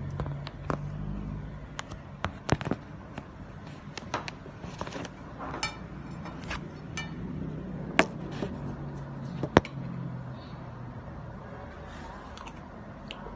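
Irregular sharp clicks and knocks from a fork on a plate and things being handled on a table, three of them loudest, over a low steady hum.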